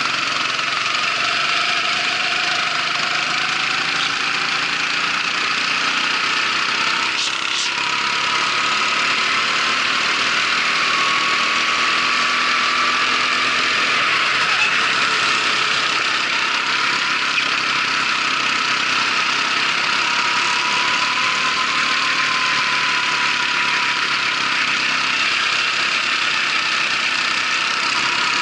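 Racing kart engine running at speed, its pitch rising and falling gently with the throttle through the corners, under a steady loud hiss of engine and rushing air. A brief sharp sound cuts through about seven seconds in.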